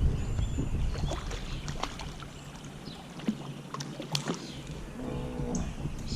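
Scattered clicks and light knocks of gear being handled on a fishing kayak, over a low rumble in the first couple of seconds. A short pitched sound comes about five seconds in.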